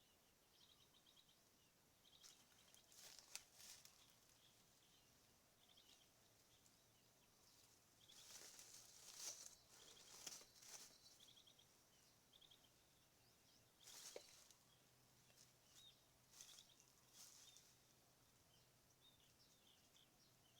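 Faint outdoor ambience of small birds chirping in short, repeated trills. Several brief rustling noises come and go, the longest cluster about eight to eleven seconds in.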